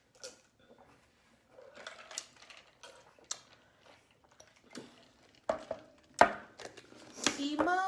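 Food containers and utensils being handled on a table: scattered clicks, taps and light rustles, the sharpest knock about six seconds in. A voice starts humming near the end.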